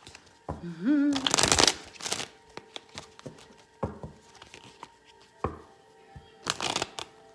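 A deck of tarot cards being shuffled by hand: a loud rustling riffle just after a second in, then scattered flicks and slaps of cards, with another burst of rustling near the end. A short rising hum is heard just before the first riffle.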